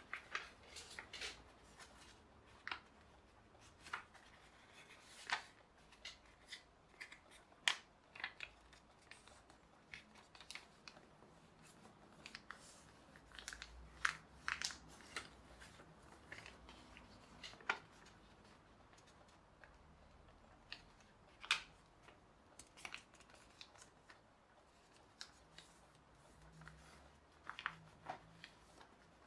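A sheet of printed paper being folded and creased by hand into a paper aeroplane: faint, irregular crackles and crisp snaps as the folds are pressed, with soft rustling between.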